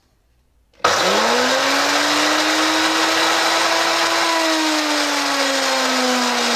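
XIMA CA-28 magnetic drill's 1.5 kW brushed commutator motor switched on, spinning up with a quickly rising whine about a second in, then running very loud, a whine over a harsh rushing noise. The owner takes the noise for a sign that the brushes and bearings need replacing.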